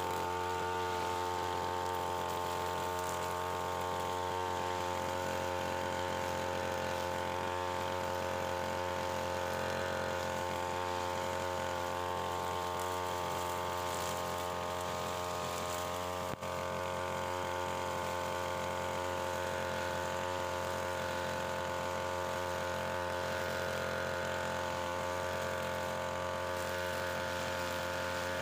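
Two-stroke engine of a UM328 backpack brush cutter running at a steady speed, its pitch unchanging, with one brief break about sixteen seconds in.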